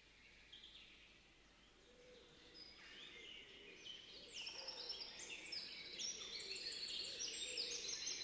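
Birdsong from many birds chirping at once, faint at first and growing louder and denser from about three seconds in, with many short, quickly repeated chirps, several of them falling in pitch.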